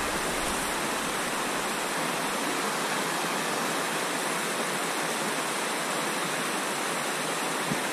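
Steady rush of river water pouring over rocks in a shallow rapid, close to the microphone.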